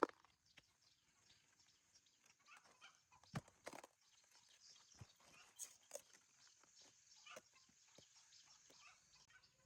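Near silence in the garden: a faint steady high-pitched hiss with scattered light clicks and rustles, and two louder knocks about three and a half seconds in.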